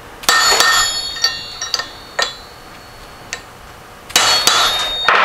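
Sharp metallic clanks with a ringing tail: a metal pipe driver striking a gear to seat it on the nose of a Porsche 912 crankshaft. There is a quick cluster of blows at the start, a few single knocks, then another cluster about four seconds in.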